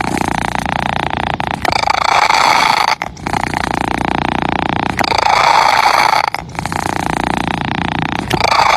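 Domestic cat purring steadily, the purr changing with each breath in and out, roughly every one and a half to two seconds.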